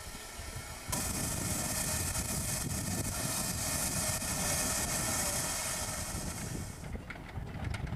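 1908 Orenstein & Koppel 0-4-0 narrow-gauge steam locomotive hissing steam, a loud steady hiss that starts abruptly about a second in and cuts off near the end.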